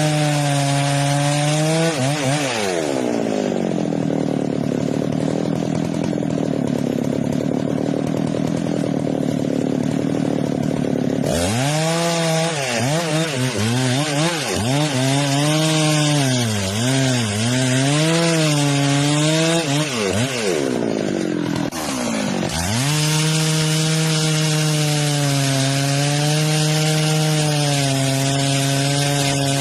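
Chainsaw running hard and cutting through wood. The engine note sags about two seconds in as the chain bites, wavers up and down midway, and holds steadier near the end.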